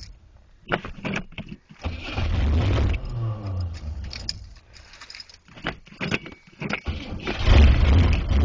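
The 350 V8 of a 1977 Oldsmobile Delta 88 being cranked over by its starter in two spells, about two seconds in and again near the end, with short knocks before the first. It is a hard cold start at about six below zero Fahrenheit, with the gas pedal being pumped.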